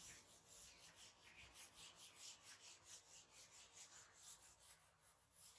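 Eraser block wiping marker off a whiteboard: faint, quick back-and-forth rubbing strokes, about four a second, stopping shortly before the end.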